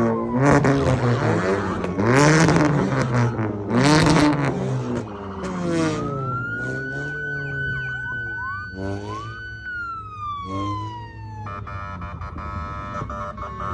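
Emergency-vehicle sirens sounding as vehicles pass. Several sirens overlap, sliding up and down in pitch through the first half. Then one siren rises, holds a high steady note for a few seconds and falls away, and a cluster of steady horn-like tones comes in near the end.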